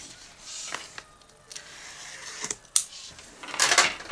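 Cellophane shrink wrap on a cardboard box being worked at with a small plastic box opener: a few light clicks and taps, then a short burst of plastic crinkling near the end.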